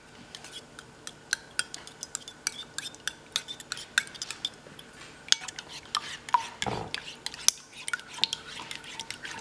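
A fork beating eggs and milk in a ceramic bowl, with quick, uneven clinks of the tines against the bowl.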